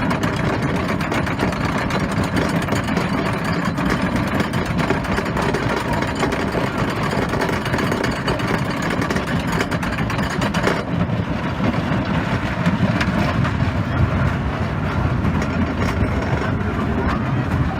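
Wooden roller coaster train running on its track: a steady rumble with constant rattling and clicking, the high hiss falling away about eleven seconds in.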